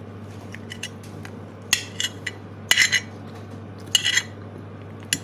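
A metal spoon scraping and clinking against a plate as rice is scooped up, in a handful of short scrapes and clicks starting about a second and a half in.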